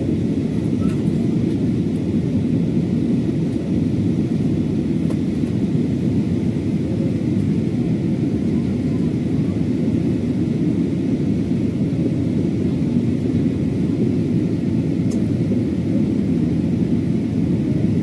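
Steady low rumble of a passenger jet's cabin in flight, engine and airflow noise heard from inside the cabin, unchanging throughout.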